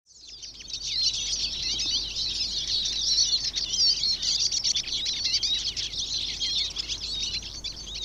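Eurasian siskin singing: a fast, continuous twittering song of quick rising and falling notes, fading in over the first second.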